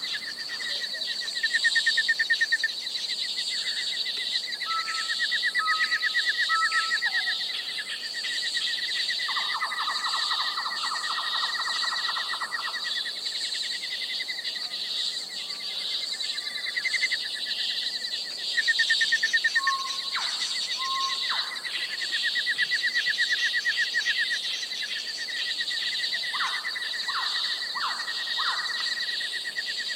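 Night jungle ambience: a steady, pulsing trill of insects under assorted bird calls and whistles, with a buzzy run of rapid calls about ten seconds in and a few quick repeated chirps near the end.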